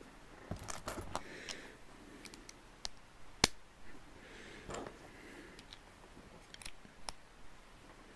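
Loose plastic LEGO pieces clicking and clattering as a hand rummages through a pile of them, with scattered light clicks and one sharper click about three and a half seconds in.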